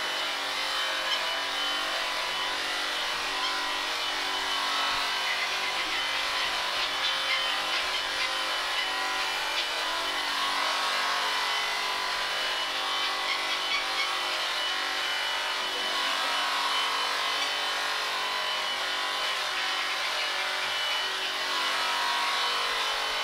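Corded electric sheep-shearing handpiece running with a steady motor hum as it cuts the fleece off a sheep.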